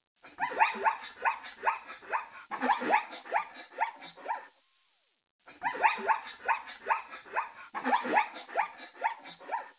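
An animal giving a rapid series of short, high barking calls, about four a second, in two runs of about four seconds with a short break between them.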